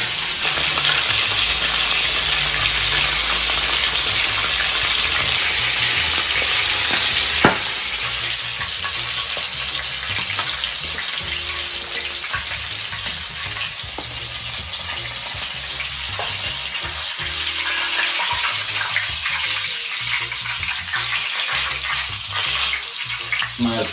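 Tilapia frying in hot oil in a pan, a steady sizzle, while metal tongs turn and lift the fish. A single sharp click comes about a third of the way in, and after it the sizzle eases a little.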